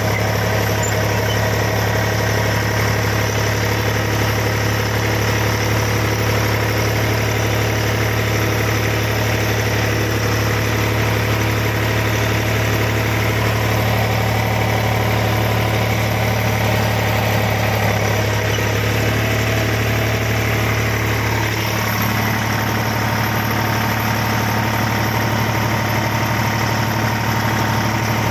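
Tractor's diesel engine running steadily, heard from the driver's seat, with a deep low hum; its tone shifts slightly about three quarters of the way through.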